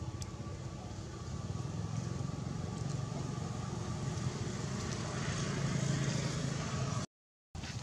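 Steady low outdoor rumble with no clear single source, cutting out to silence for a moment near the end.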